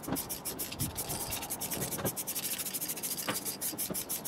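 Aerosol can of grey primer hissing as it is sprayed onto a car door panel, the hiss pulsing quickly, with a few faint knocks.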